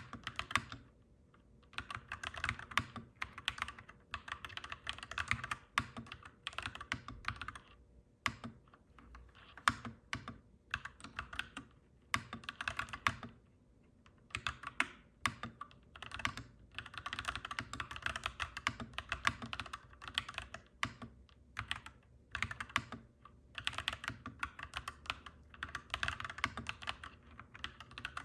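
Clacky mechanical keyboard being typed on in rapid runs of keystrokes, broken by short pauses every few seconds.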